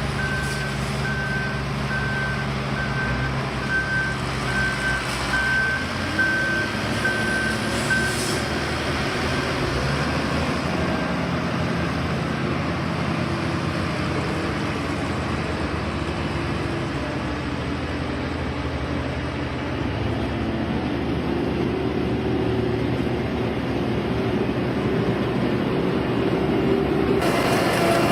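Heavy diesel road-construction machinery running, with a reversing alarm beeping roughly once a second for the first eight seconds or so. The engine note shifts up a little about six seconds in and runs on steadily after that.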